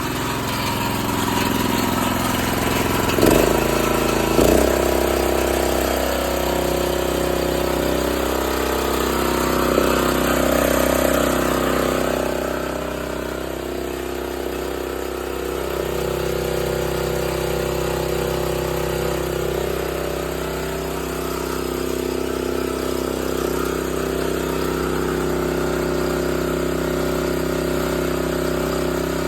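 Old Honda generator's 8 hp GX240 single-cylinder engine running steadily. A couple of short knocks come about three and four and a half seconds in, after which the engine settles at a different pitch.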